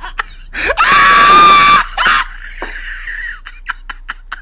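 A woman's shrill squeal, rising at the start and held for about a second, then trailing off into a fainter, thinner squeal.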